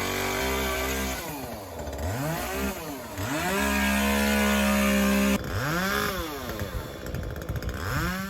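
Two-stroke chainsaw revving up and dropping back several times, held at full throttle for about two seconds in the middle, with the sound breaking off abruptly about five seconds in.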